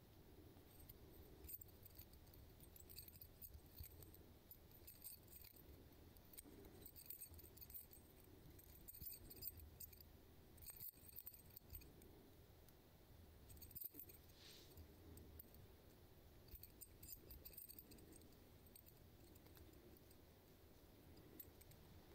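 Faint metal-on-metal scraping as a hook sharpener is drawn across a fishing lure's hook in short strokes every couple of seconds, with the lure's metal parts clinking and jingling.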